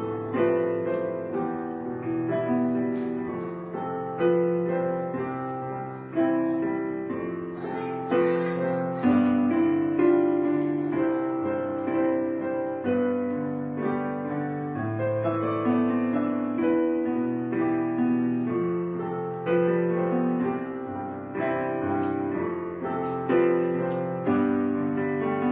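Background piano music: notes and chords struck about once a second and left to ring out and fade.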